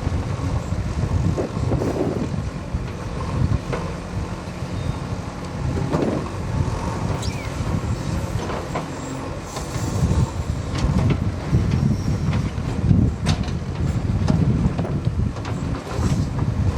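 Bull backhoe loader's diesel engine running at work, its loudness rising and falling, with a few sharp metallic clanks in the second half.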